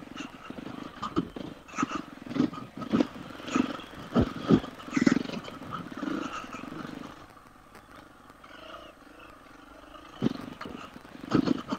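350 cc four-stroke single-cylinder enduro bike engine pulling in short, uneven throttle bursts on rough trail, with a few sharp knocks. It eases back to a low, steady running about seven seconds in, then picks up again near the end.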